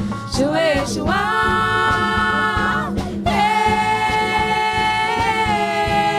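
A live band playing a Brazilian folk song: women's voices hold long sung notes that slide between pitches, over electric guitar, bass, a drum kit and congas.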